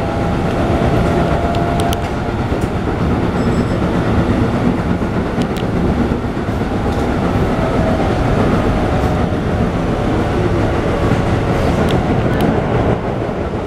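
Interior running sound of a Keikyu 1500 series electric train: a steady rumble of wheels on rail with a few sharp clicks from the rail joints, and faint whining tones from the Toyo GTO-VVVF inverter traction motors coming and going.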